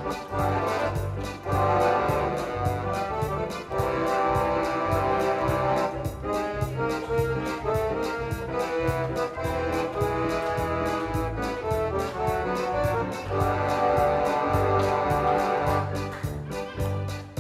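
Accordion playing Oktoberfest-style music in a full, brass-band-like orchestral sound over a steady oom-pah bass, beginning to die away at the very end.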